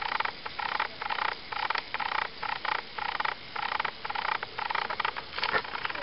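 An RC helicopter's servos buzzing in short, evenly spaced bursts, about two a second, as the Co-Pilot II stabilizer drives them. A sharp click about five and a half seconds in.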